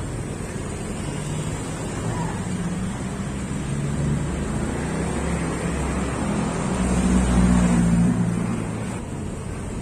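A motor vehicle's engine passing close by, its hum growing to the loudest point about seven seconds in and then fading, over a steady low rumble.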